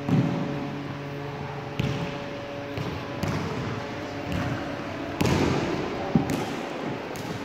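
A basketball and running footsteps thudding on a sports-hall floor: a handful of irregular thumps, about a second apart, echoing in the large hall.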